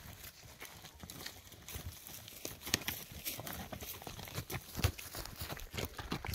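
Horses moving about in woodland: irregular crunches, crackles and hoof knocks on the ground and undergrowth, with two louder knocks near the middle.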